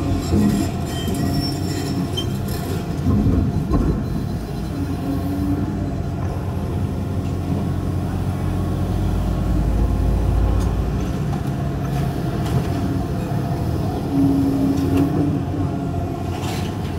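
Excavator demolishing a steel-framed building: its diesel engine runs steadily under a low rumble of crunching debris, with a few knocks and metal scraping, and a deeper surge of rumble near the middle.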